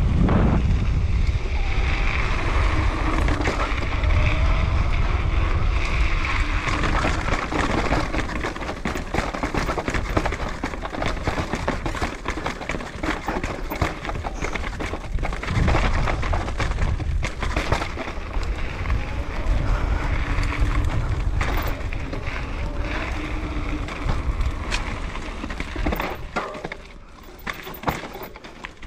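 Mountain bike descending a dirt trail, with wind buffeting the microphone and tyres rolling over dirt, then the bike clattering and knocking as it rides over rocks.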